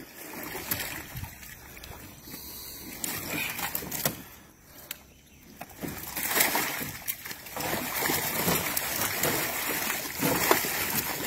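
Catfish splashing and thrashing at the water surface as they are tipped out of a hoop net over a boat's side. The splashing is louder and denser in the second half.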